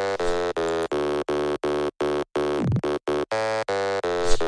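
Electronic intro music: a buzzy synth note chopped into short even pulses, about three a second, with a falling swoop a little past halfway and a quick rising swish near the end.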